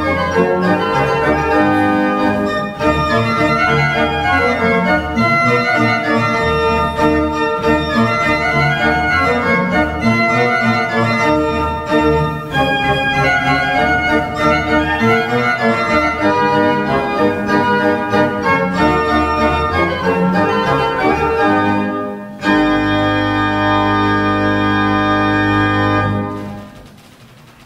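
Martin Podkonický's 1751 baroque pipe organ playing a 16th-century Renaissance dance, busy moving lines over a bass. About 22 seconds in it settles on a long final chord with a deep pedal note, which is released near the end and dies away in the room's echo.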